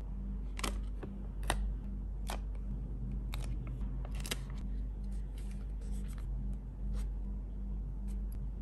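Sharp clicks and crinkles of a clear plastic sticker sheet as small stickers are picked off it with tweezers and pressed onto paper, about five distinct clicks in the first half, fainter ticks after, over a low steady hum.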